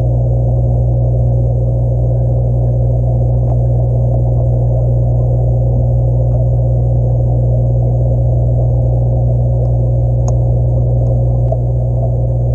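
Steady, loud low hum of aquarium equipment such as the filter or pump, heard through a camera inside the tank, with a faint higher tone over it. A few faint, sharp clicks stand out, the clearest near the end.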